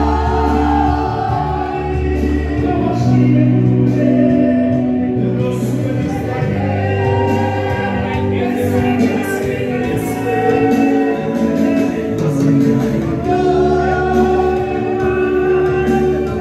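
A male singer performing a Spanish-language song live into a microphone, amplified over a steady musical accompaniment.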